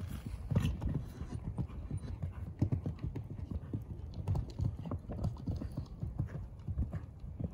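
Hoofbeats of a horse cantering on sand arena footing, a steady run of low thuds, with the take-off and landing of a jump over a fence near the start.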